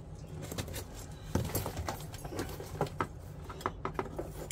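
Cardboard box being handled and opened at its bottom: a scatter of irregular cardboard taps, knocks and rustles, the sharpest knock about a second and a half in.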